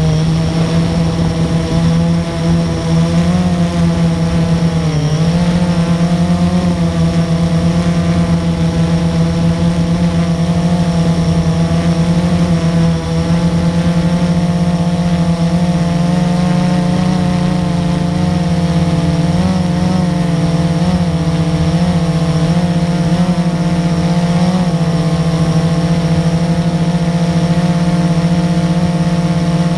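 Blade 350QX quadcopter's brushless motors and propellers running loud and steady, heard close up from the camera mounted on the drone. The pitch dips briefly about five seconds in and wavers several times in the second half as the motors change speed.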